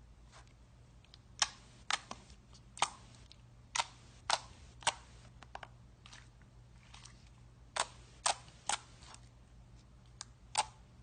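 Slime being pressed and squeezed by hand, giving sharp popping clicks as air pockets burst: about ten separate pops at uneven intervals, some in quick pairs, over a faint low hum.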